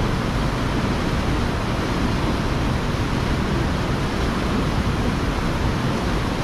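Steady rushing of a small waterfall pouring through a narrow rock gorge into a pool below, an even, unbroken roar of whitewater.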